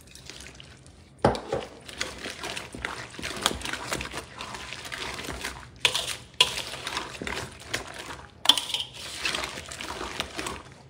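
A gloved hand mixing mayonnaise-dressed pasta salad in a stainless steel bowl: continuous wet squelching and stirring, with a few sharp knocks against the metal bowl.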